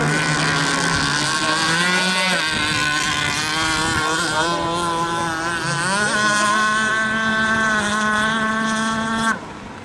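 Radio-controlled speedboat's motor running at high speed as the boat planes across the water. Its pitch holds fairly steady, steps up about six seconds in, and the sound drops away sharply near the end.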